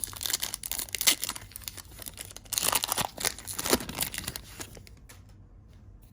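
Trading card pack wrapper being torn open and crinkled by hand, with dense crackling that is loudest from about two and a half to nearly five seconds in, then dies down.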